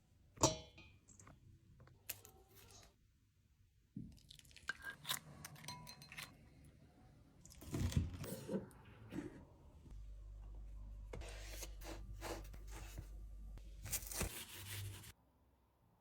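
Crunching and tearing of crispy fried chicken and bread being handled, with scattered knocks and clicks. A sharp knock comes about half a second in, and a steady low hum runs for about four seconds in the second half before everything cuts off.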